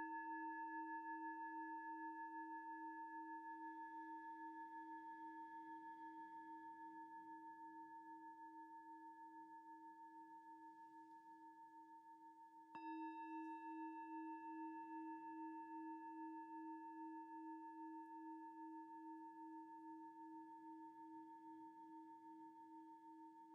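A meditation singing bowl ringing out with a slow pulsing waver and gradually fading, struck again about halfway through and ringing on.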